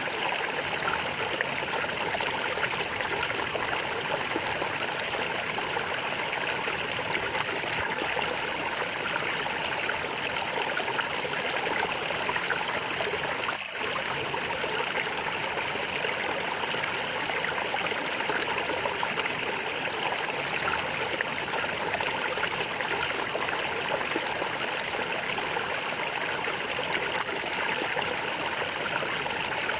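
Water flowing and gurgling steadily in a stream, with one brief drop in level about halfway through.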